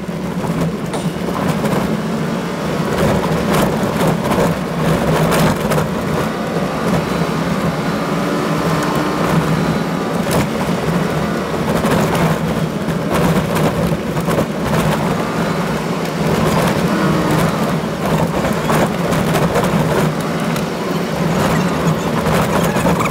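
Toyota Land Cruiser driving along a rough dirt track, heard from inside the cab: a steady low engine and road drone with scattered knocks and rattles from the bumps.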